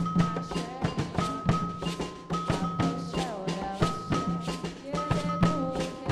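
Percussion ensemble playing Afro-Brazilian drum music: a dense, driving rhythm of drum strikes, with sustained high notes and sliding pitches over it.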